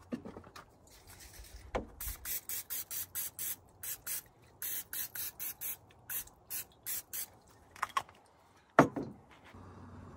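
Cooking spray spritzed in quick short bursts, about three a second for several seconds, as a pie iron is greased for a sandwich. A single sharp thump comes near the end.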